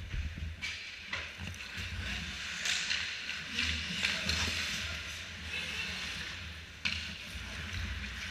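Ice hockey skate blades scraping and carving on the ice close by, the goalie shuffling in the crease. A few sharp clacks come about half a second, a second and seven seconds in, over a steady low rumble.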